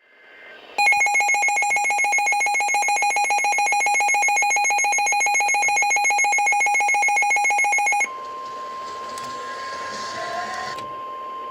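Emergency alert tones ahead of a flash flood warning: a loud, rapidly pulsing electronic alarm of several tones runs for about seven seconds and cuts off sharply. It is followed by a single steady alert tone over radio hiss.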